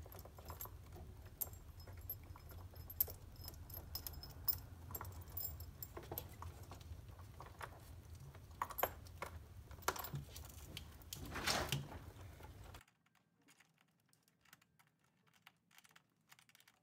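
Small metallic clicks and clinks of battery cable ends and a new terminal clamp being handled and fitted together, scattered and irregular, over a low steady hum that cuts off about thirteen seconds in.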